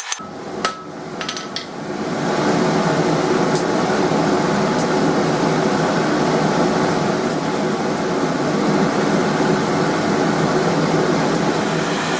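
A blacksmith's forge running with a steady roar as the bar reheats, with a few faint knocks in it, between bouts of hammering.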